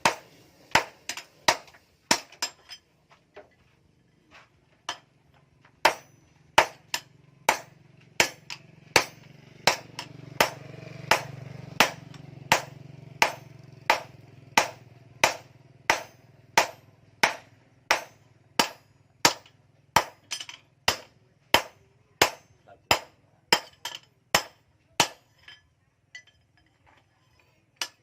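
Hand hammer striking hot steel on an anvil while forging an axe head: a steady rhythm of sharp blows, about one and a half a second, with a pause a few seconds in and the blows thinning out near the end. A low hum swells and fades under the blows in the middle.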